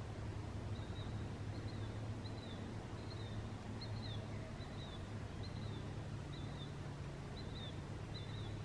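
A small animal calling with short, high, down-slurred chirps, repeated about twice a second, over a steady low hum.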